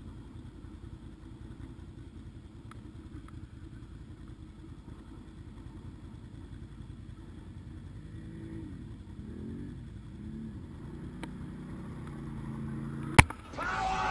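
Quad bike engines idling with a steady low rumble; about eight seconds in, an engine revs up and down a few times. A single sharp click comes near the end, then a louder quad engine running under load.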